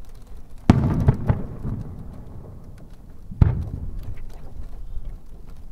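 Aerial fireworks booming: a loud boom about a second in, a smaller one just after, and another about three and a half seconds in, each trailing off in a long rumbling echo.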